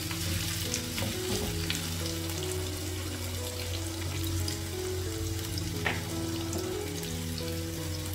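Sliced red onions frying in oil in a nonstick pan: a steady sizzle, with a couple of clicks as metal tongs touch the pan to stir them. Quiet background music plays underneath.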